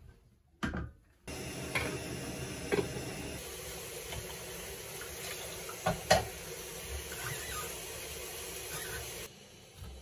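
A tap runs steadily into a stainless-steel kitchen sink, with sharp clinks and knocks of metal pots and bowls being handled during washing. The running water starts about a second in and stops near the end.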